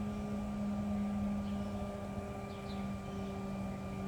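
Steady mechanical hum at one constant low pitch, with a low rumble beneath it.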